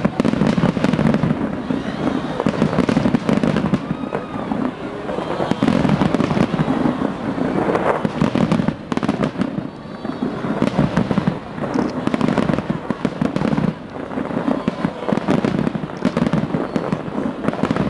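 A fireworks display going off in a dense, continuous barrage of overlapping bangs and crackles with no pause, easing briefly a couple of times.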